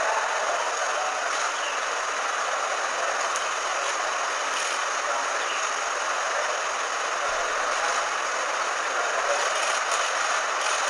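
Steady rushing background noise, like hiss or open-air ambience, with a few faint clicks, mostly in the last couple of seconds.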